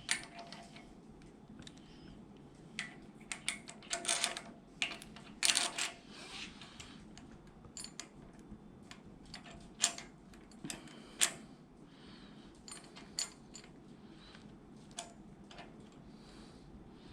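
Scattered light metallic clicks and clinks, about a dozen, a few in quick runs, from hand tools and valvetrain parts as roller rocker arms and pushrod guide plates are lined up and gently tightened on a small-block Chevrolet engine.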